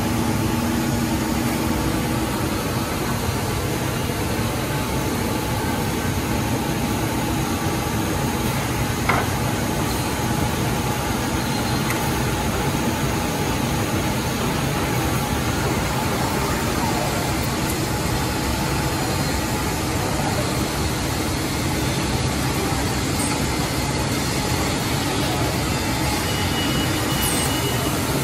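Anderson PTP-3013 CNC point-to-point boring machine running in a woodworking factory: a steady mechanical noise, with a single sharp knock about nine seconds in.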